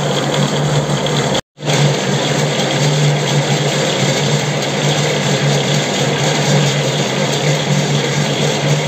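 Metal lathe running with a steady low hum while its tool screw-cuts a 2 mm pitch thread on a hydraulic cylinder shaft. The sound cuts out for a moment about one and a half seconds in, then resumes.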